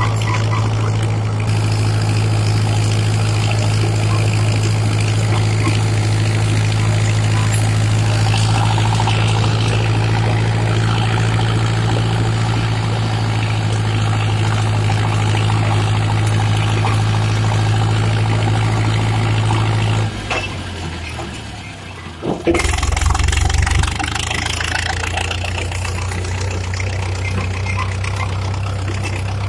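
Steyr 8073 diesel tractor engine running steadily. About twenty seconds in its note drops, there is a brief louder burst a couple of seconds later, and then it settles to a steady, lower note.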